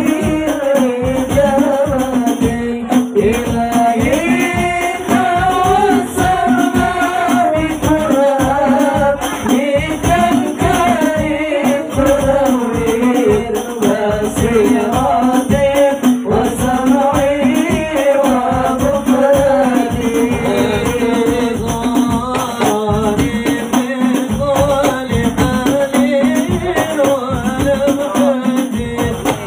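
Hadroh ensemble performing: hand-struck frame drums (rebana) beating a fast, dense rhythm under a lead voice singing an Arabic devotional melody.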